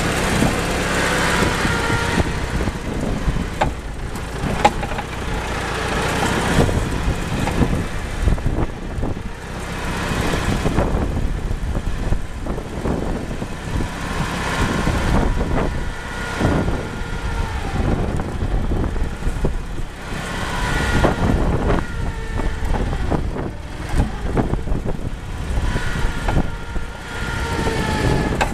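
Small forklift's engine running, its pitch rising and falling a few times as it revs, with scattered knocks and clanks.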